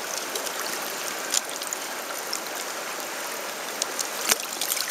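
River current rushing and rippling steadily around a landing net held in the water, with two brief sharp clicks, one just over a second in and one near the end.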